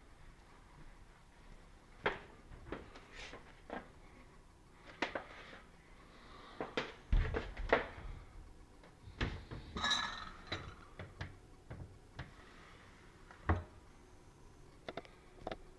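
A hotel-room cupboard being opened and its contents handled: scattered clicks and knocks. They are densest about seven to eight seconds in, with a couple of dull thumps, and a short ringing clink about ten seconds in.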